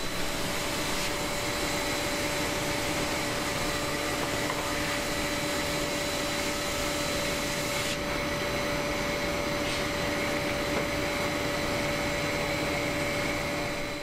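VIET wide-belt calibrating sander running: a steady whirring hum with a constant rushing noise while a board is fed through for sanding.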